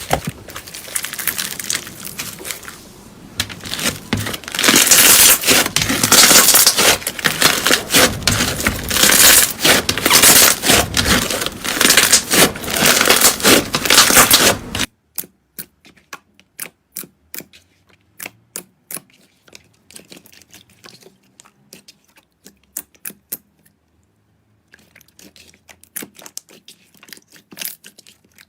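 Slime being squeezed and kneaded close to the microphone, with loud, dense crackling and crinkling. About halfway through it cuts to quieter slime play: scattered sharp clicks and pops, with a brief pause.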